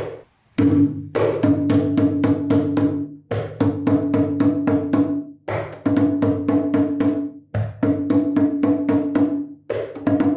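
A cununo, the Colombian Pacific hand drum, played solo in the bunde rhythm. It plays repeated phrases of quick hand strokes, each about two seconds long, with brief pauses between them.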